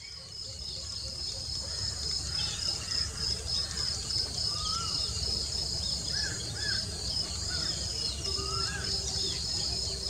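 Outdoor grassland ambience: a steady high-pitched chirring of insects, with scattered short chirps and whistled calls of small birds over a low background rumble.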